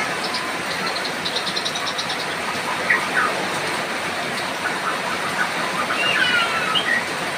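Steady hiss of rain falling, with a white-rumped shama singing over it: a rapid run of short high chattering notes about a second in, and whistled gliding phrases near the end.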